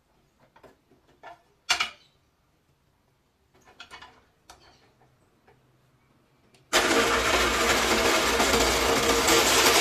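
A few light clicks and knocks of tools and a small wooden piece being handled, then, about seven seconds in, a benchtop drill press is switched on and its electric motor runs steadily and loudly.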